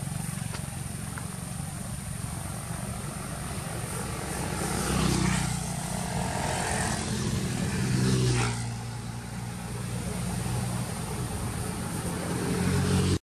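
Low engine rumble from passing motor traffic, swelling twice as vehicles go by, about five and eight seconds in, then cutting off suddenly at the end.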